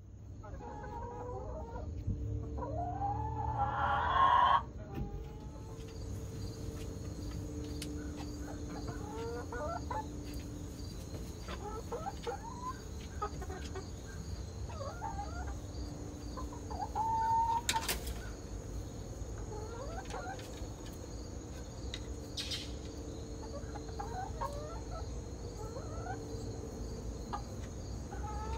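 Hens clucking, with short rising calls repeated every second or two and one louder, longer call about three seconds in. Two sharp clicks come later.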